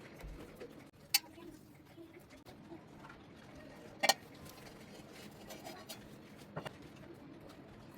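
Kitchen utensils knocking and clicking while food is prepared: three sharp knocks, a little over a second in, about four seconds in and near the end, over faint handling noise.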